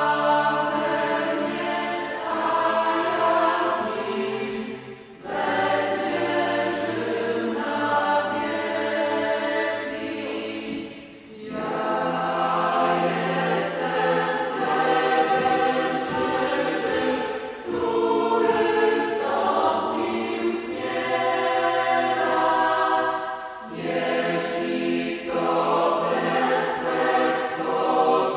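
A choir singing a slow piece in long held phrases, with a short break about every six seconds.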